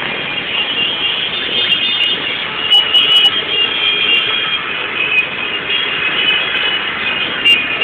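Many motorcycles running together in a dense mass, their engine noise steady, with high held tones running through it. A few sharp cracks come about three seconds in, and again near the end.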